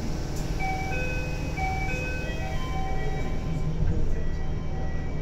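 A short electronic chime melody of clear single notes plays over the steady low hum of a Toei 6300 series train car.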